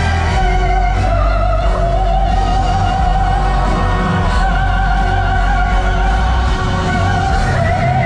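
Music with one high note held almost throughout, bending slightly now and then, in an opera-like style.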